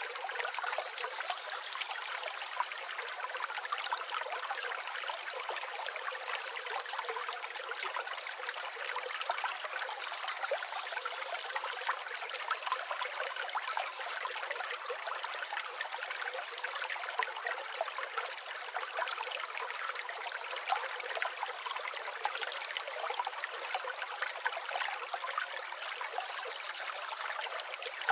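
River water flowing over stones, a steady rushing and trickling with no low rumble. A few faint, short, high bird chirps come through about a second in and again near the middle.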